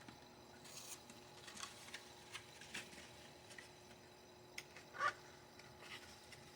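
Faint scattered clicks and rustles of hands handling RAM modules and packaging, with one louder short squeak about five seconds in, over a faint steady hum.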